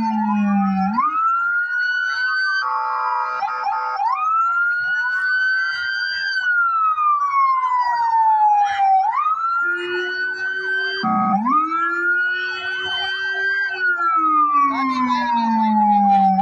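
Electronic emergency siren on a fire department pickup truck sounding a slow wail, its pitch climbing and then sliding down again every four to five seconds. A horn blast of just over a second cuts in about three seconds in, and a shorter one about eleven seconds in.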